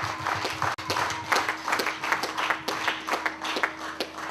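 Hands clapping in an even rhythm, about four claps a second, in praise.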